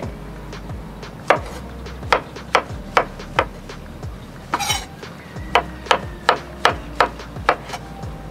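Chef's knife slicing button mushrooms on a wooden cutting board: a series of sharp knocks as the blade strikes the board, about two a second, with a brief rustling scrape about halfway through.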